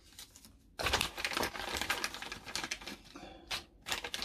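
Hands handling a small 1/14-scale fifth-wheel coupling and its packaging: dense rustling with quick clicks and light knocks, starting about a second in, with a short lull two-thirds of the way through.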